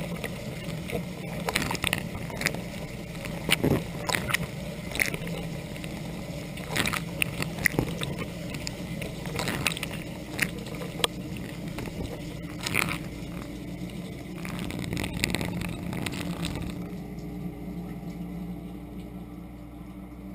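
Dishwasher rinse cycle heard from inside the tub: water jets from the spinning spray arm spatter irregularly against the racks and camera over the steady hum of the pump. Near the end the spraying stops, leaving a quieter hum.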